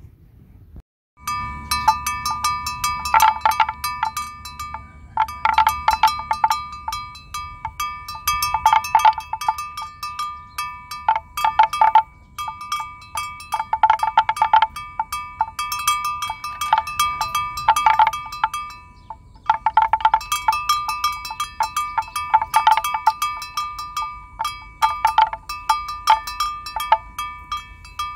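Metal bell clanking rapidly and irregularly on a few fixed ringing notes, starting suddenly about a second in and going in runs broken by short pauses.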